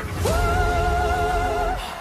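Background music with a singing voice holding one long wavering note for about a second and a half over a low bass line.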